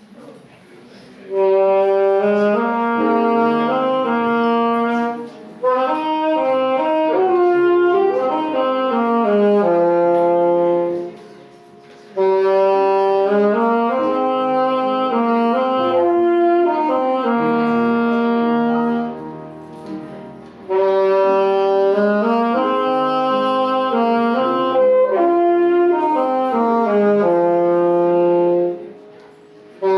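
Offertory music during the collection: an instrument plays slow, sustained chords in hymn-like phrases, with short breaks between the phrases.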